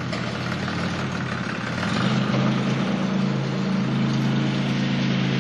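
Engine of a lifted Toyota off-road SUV running at low revs as the truck creeps forward, getting a little louder about two seconds in.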